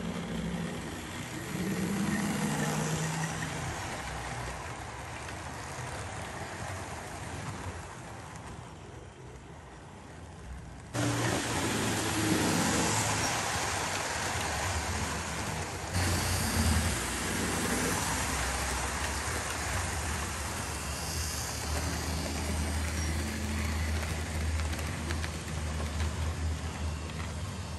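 OO gauge model train, a diesel locomotive hauling coaches, running along the track with a steady motor hum and wheel rumble. The level jumps suddenly louder about eleven seconds in and again near sixteen seconds.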